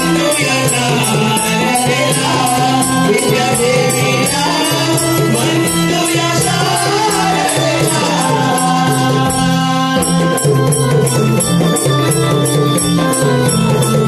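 Marathi devotional song from a Naman performance: a male voice sings a wavering melody over steady held chords and a jingling percussion beat. About nine seconds in the voice drops out and the accompaniment carries on with an even beat of about three strokes a second.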